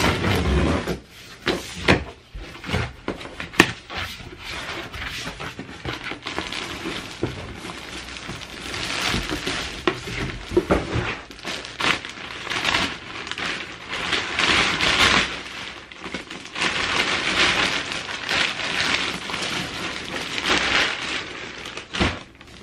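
Package unboxing: scissors cutting into a cardboard box, then plastic mailer bags and plastic pillow wrapping being torn open and crinkled as pillows are pulled out, with rustling, crackling and a few knocks from handling the box.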